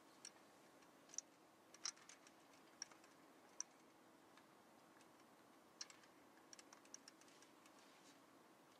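Near silence: a faint steady hum with scattered faint sharp clicks, bunched in two short clusters.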